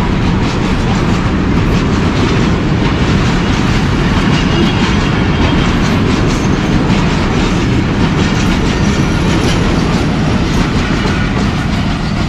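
Loaded oil tank wagons of a freight train rolling past at speed, steel wheels clattering over the rail joints in a loud, steady rumble. Near the end the brake van at the tail goes by and the noise begins to ease.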